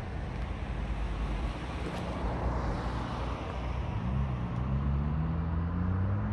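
Road traffic going by, a steady rumble; from about four seconds in, a vehicle's engine note rises slowly as it pulls away and accelerates.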